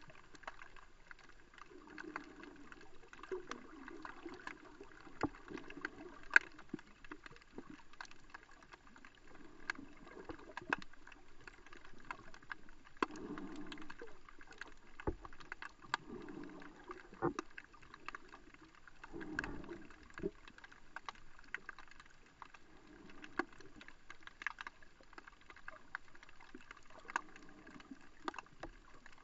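Muffled water sound picked up underwater through a GoPro housing: irregular low sloshing swells with many scattered sharp clicks.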